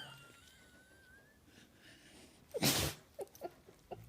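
Blue Heeler dog sneezing once, a short sharp burst about two and a half seconds in, set off by having her nose tickled. A few faint short blips follow.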